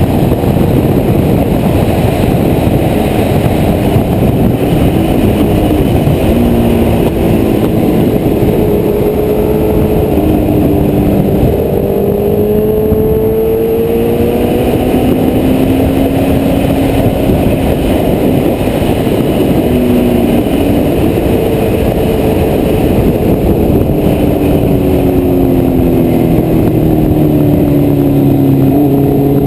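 Honda CBR1100XX Blackbird's inline-four engine running at speed under loud wind rush on an onboard camera. The engine note rises and falls with the throttle, then drops in pitch near the end as the bike slows.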